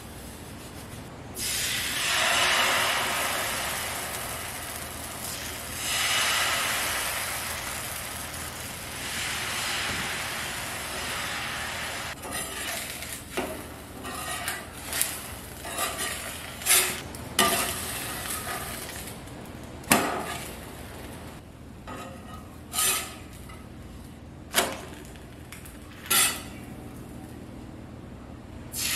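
Sizzling on a hot cast-iron dosa tawa, in three hissing swells that each fade away, followed by a run of sharp clicks and knocks of a utensil on the pan, the loudest about twenty seconds in.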